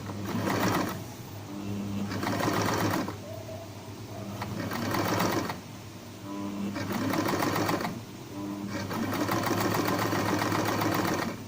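Portable electric sewing machine stitching in about five short runs of one to two and a half seconds with brief stops between them, sewing on bias binding fed through a binding funnel.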